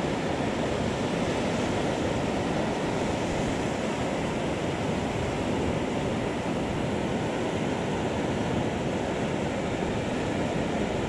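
Steady wash of surf breaking on a beach, an even noise with no distinct events.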